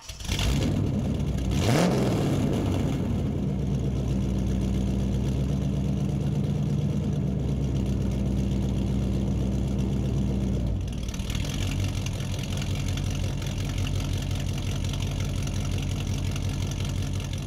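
Car engine revved briefly about two seconds in, then idling steadily; about eleven seconds in the idle sound changes and runs on a little quieter.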